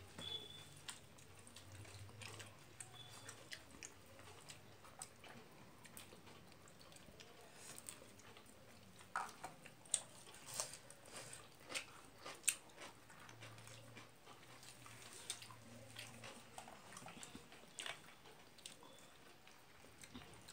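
Close-up eating sounds: a person chewing rice and curry eaten by hand, with soft wet mouth clicks throughout. Between about nine and thirteen seconds in come several loud, crisp crunches from biting into raw cucumber.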